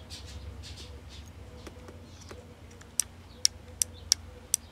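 Faint rustling early on, then a quick run of five sharp, high clicks in the second half, over a faint steady hum. The repaired radio gives no sound of its own.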